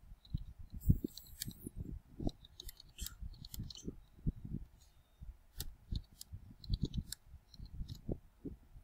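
Typing on a computer keyboard: an irregular run of key clicks, one sentence being typed out.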